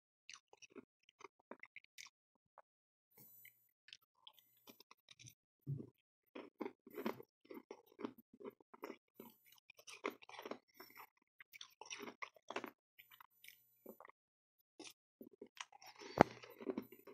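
Chewing and crunching a mouthful of powdery freezer frost: a run of short, crisp crunches, sparse at first and thicker from a few seconds in, with one sharp, louder crack near the end.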